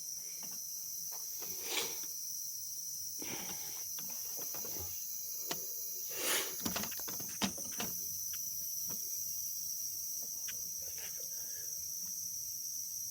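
A steady high-pitched whine, with scattered clicks, knocks and rustles of handling over it, the loudest about two seconds in and around six to seven and a half seconds in.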